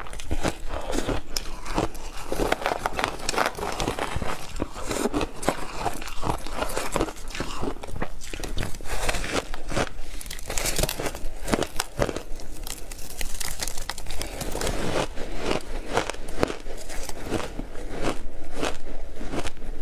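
Block ice coated in milk powder being bitten and chewed: a dense, irregular run of sharp crunches and cracks as the ice breaks between the teeth.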